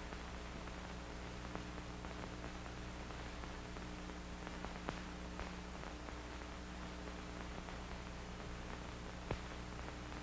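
Faint steady hiss and low hum of an old film soundtrack, with a few faint clicks.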